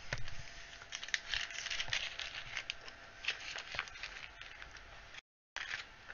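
Clear plastic bag crinkling and rustling in the hands as small model skull pieces are put back into it, with light clicks of the pieces. The sound drops out completely for a moment about five seconds in.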